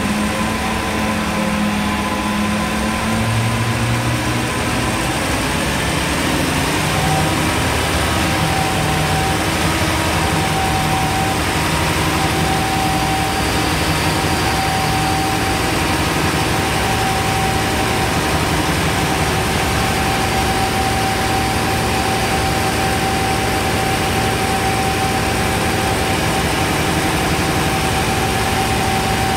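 Three-stage reciprocating gas compressor package running loud and steady as it comes up on load after start-up. Its hum shifts in pitch during the first few seconds, and a steady whine sets in about seven seconds in.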